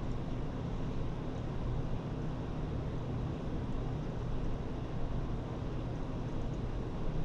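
Steady low hum with hiss, unchanging throughout, with a few very faint ticks.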